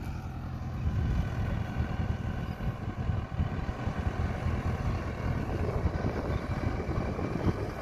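Mahindra Arjun Novo tractor's diesel engine working under full load with an 8-foot Maschio rotavator tilling deep in a flooded paddy field: a steady low engine hum with a rough churning rumble that grows louder about a second in.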